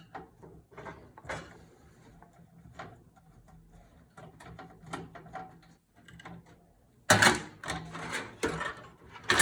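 Light clicks and ticks of a screwdriver and small metal parts being handled inside a PC case, then from about seven seconds in a louder scraping and rubbing as the motherboard is worked loose and lifted out.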